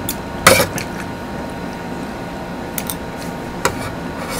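A handful of short, sharp clicks from a spoon and fork working against a dish, scattered through a steady low hiss.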